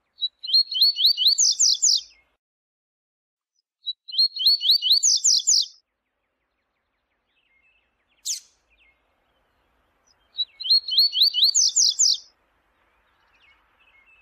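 Double-collared seedeater (coleiro) singing its 'viu-tiu' song: three phrases of about two seconds each, each a short opening note followed by a quick run of repeated notes that climbs in pitch. A single sharp call note comes between the second and third phrases.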